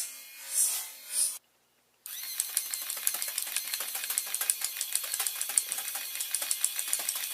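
Motor-driven rubber band machine gun firing continuously: a fast, even rattle of mechanical clicks as its ratchet advances and releases band after band. This starts about two seconds in, after a short break, and is preceded by a few evenly spaced pulses of noise.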